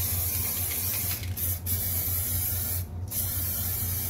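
Aerosol spray-paint can hissing in four bursts, with short breaks between them, as paint is sprayed on.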